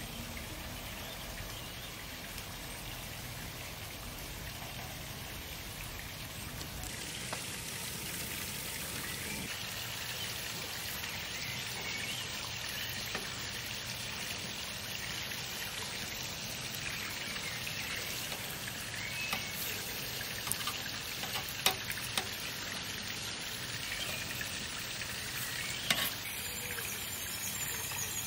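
Chicken tikka pieces on skewers sizzling over hot charcoal on a barbecue grill, a steady crackling hiss. A few sharp clicks come about three-quarters of the way through.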